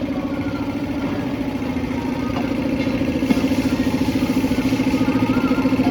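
An engine idling steadily with an even, rapid beat, getting a little louder about halfway through.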